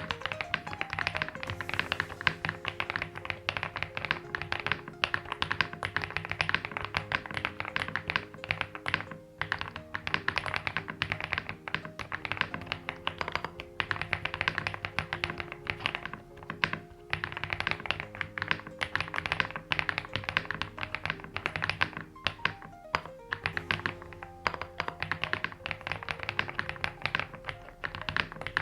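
Continuous fast typing on an EPOMAKER TH80 V2 Pro mechanical keyboard, stock, with pre-lubed Creamy Jade linear switches, a polycarbonate plate, gasket mount and PBT keycaps: a dense stream of key taps. Background music with held notes plays under it.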